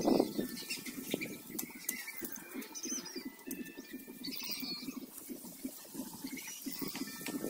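Dry sugarcane leaves rustling and crackling as they are gathered and dragged by hand, with a few short high calls above the rustle.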